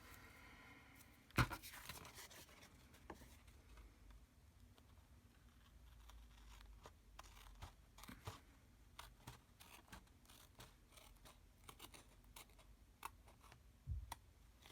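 Quiet paper-crafting handling: scattered small clicks, taps and rustles of paper and tools on a tabletop, with a sharper knock about a second and a half in and another near the end.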